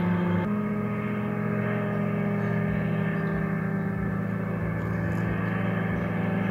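Powered paraglider (paramotor trike) engines and propellers droning steadily as they fly. The pitch of the drone jumps about half a second in.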